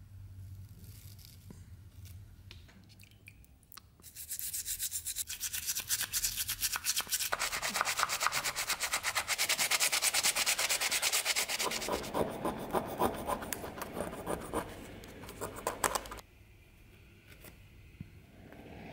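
Toothbrush scrubbing a soapy nickel-plated zinc dagger-handle part with rapid back-and-forth strokes. It starts about four seconds in and stops suddenly about three seconds before the end, leaving only faint scraping from a pointed wooden stick.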